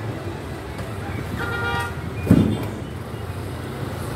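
Street traffic with a steady low engine hum. A short horn toot sounds about a second and a half in, and a sudden loud thump follows about half a second later.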